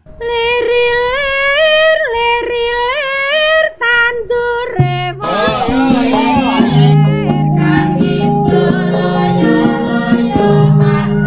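Javanese gamelan music: a woman's voice sings an ornamented, sliding solo line for the first few seconds, then the ensemble comes in about seven seconds in with steady struck metallophone notes over low held tones.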